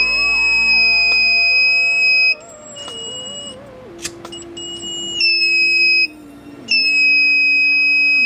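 Alarm buzzer of an ESP32 flame-sensor fire-alarm circuit, sounding a loud, steady high-pitched beep that stops after about two seconds, comes back for about a second, then sounds again near the end. Background music plays underneath.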